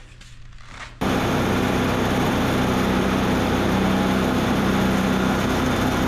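Wood-Mizer LT35 band sawmill running steadily, its engine and turning band blade a loud, even hum, coming in abruptly about a second in as the sawhead moves up to the log.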